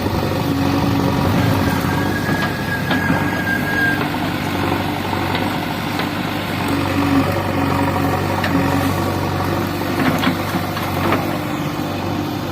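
JCB 3DX backhoe loader's diesel engine running steadily, with short higher tones coming and going over it and a few clicks.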